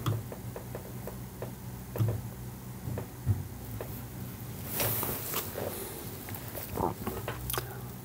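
Steady low hum with scattered soft clicks and a brief hiss about five seconds in.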